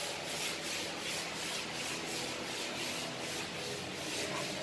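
Plastic grinder machine running: a steady rasping whir with a rhythmic swish about three to four times a second.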